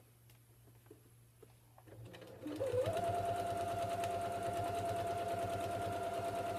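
Janome electric sewing machine starting up about two seconds in, after a few faint clicks of fabric handling: its motor whine rises briefly, then settles into steady running with a rapid, even stitching rhythm as it sews a topstitch seam through the layered fabric.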